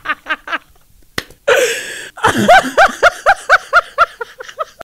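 A person laughing in quick, evenly spaced "ha-ha-ha" pulses that trail off, twice over, with a short breathy sound between the two runs.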